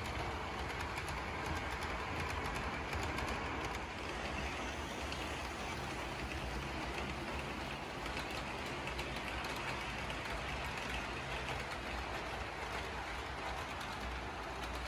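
HO scale model freight train rolling on the layout's track: a steady whir and rattle of the locomotive and cars, with many fine clicks of the wheels on the rails.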